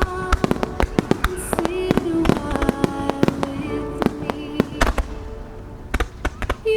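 A rapid barrage of firework shells bursting in a starmine finale, many sharp bangs a second, a little sparser about five seconds in. Music plays over the loudspeakers underneath the bursts.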